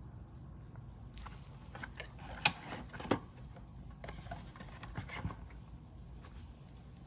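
Gloved hands handling a plastic blister pack and a cardboard box: light crinkles and taps, with two sharper clicks about two and a half and three seconds in, and a few more taps around five seconds in.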